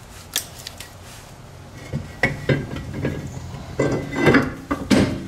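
Rear brake drum being handled and slid back over the hub and new brake shoes: a sharp click about half a second in, then a run of metal clanks and scrapes, loudest near the end.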